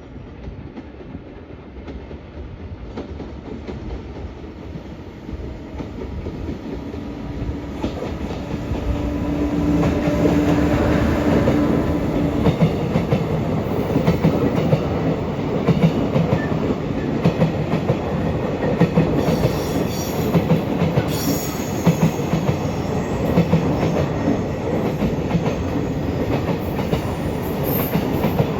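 Container freight train hauled by an electric locomotive approaching and passing, growing louder over the first ten seconds with a steady hum from the locomotive. Then comes a long run of clickety-clack as the container wagons' wheels roll over the rail joints.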